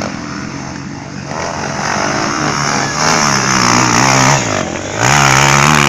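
Dirt bike engine revving on a trail ride, its pitch rising and falling as the throttle is worked, with two loud pulls about three seconds in and about five seconds in.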